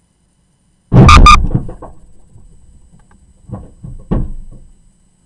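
A reversing vehicle backs into the parked car, and the collision is heard from inside the struck car as one sudden loud impact about a second in, with a short rattle that dies away. A few softer thumps follow about three seconds later.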